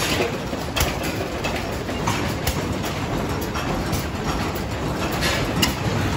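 Antique stationary engines running in an exhibit barn: a steady mechanical clatter with irregular knocks and pops.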